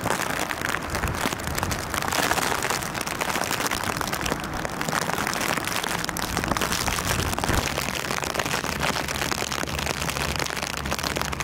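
Steady heavy rain with floodwater running over a flooded street, a dense even hiss. A deeper low rumble comes in underneath about two-thirds of the way through.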